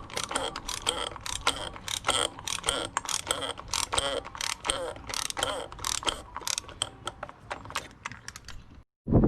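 Hand ratchet clicking in a quick, uneven run of pawl clicks as it tightens the oil filter housing cap.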